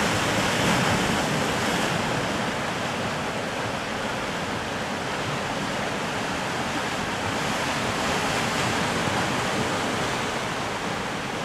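Sea surf washing against a rocky shoreline, a steady rush of noise that swells and eases slightly as the waves come in.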